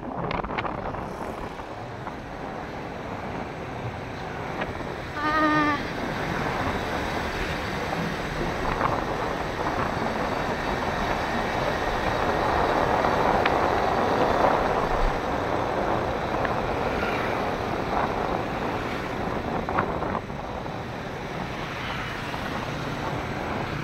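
Road traffic passing on a wide concrete road, mostly motorcycles: a continuous rush that swells to its loudest about halfway through and eases off later. A brief pitched call sounds about five seconds in.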